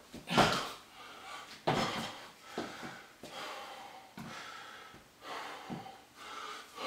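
A man panting hard from exertion during burpees, with a series of loud breaths about a second apart. Two thuds in the first two seconds come from him jumping his feet in and rising from the plank on a wooden floor.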